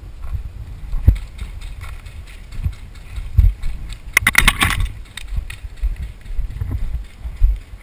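Footsteps on dry, stony dirt and gear jostling against a body-worn camera, thudding irregularly, with a quick run of sharp clicks or pops about four seconds in.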